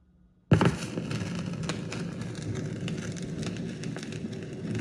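Turntable stylus set down on a vinyl record with a sudden thump about half a second in, then steady surface crackle and frequent pops from the groove.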